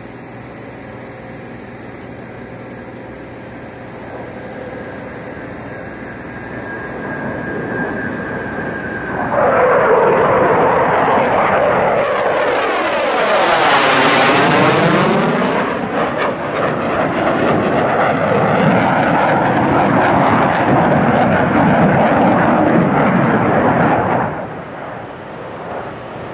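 McDonnell Douglas F-4 Phantom's twin J79 turbojets as the jet flies past. The jet noise builds for several seconds and turns loud about a third of the way in. It sweeps as the jet passes around the middle, stays loud, and falls away near the end.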